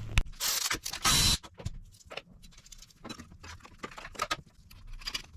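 Small metal clicks and clinks from bolts, a washer and a steel bracket being handled and fitted by hand, with two short rustling scrapes in the first second and a half.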